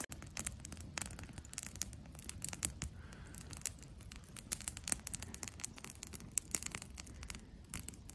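Open wood campfire crackling: many irregular sharp pops and snaps over a low, steady rumble.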